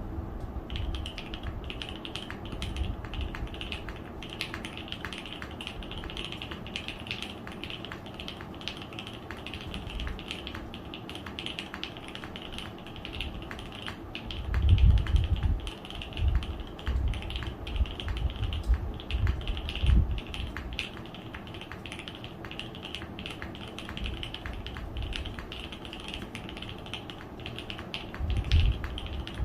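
Continuous fast typing on a custom 60% mechanical keyboard with lubed and filmed Alpaca V2 linear switches, dampened with PCB foam, plate foam and IXPE switch pads. Keystrokes click in a dense, steady stream, with a few heavier low thumps about fifteen seconds in and near the end.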